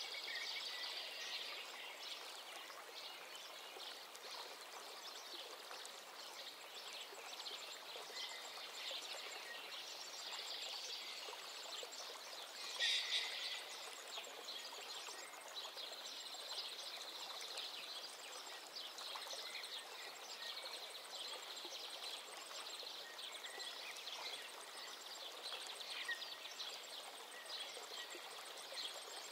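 Faint, steady background chirping of birds and insects. A brief louder sound comes about halfway through.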